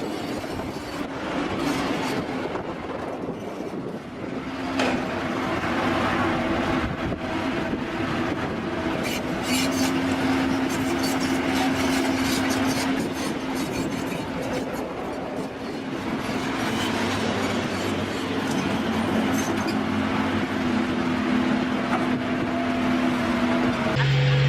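Train running: continuous rolling noise with scattered clicks, and a steady low pitched tone that sets in about five seconds in and holds.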